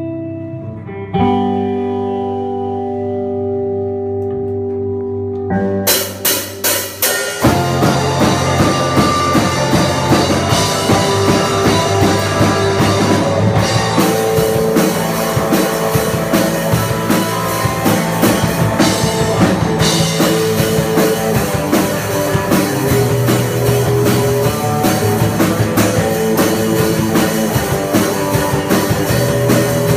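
Live rock band playing an instrumental passage: electric guitar chords ring and sustain at first, then drum hits come in about six seconds in and the full band of guitars and drum kit plays on with a steady beat.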